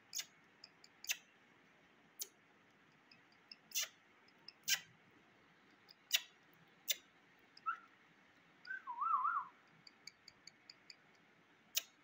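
Sharp, separate clicks every second or so, and a short wavering whistle about nine seconds in, preceded by a brief chirp-like rise.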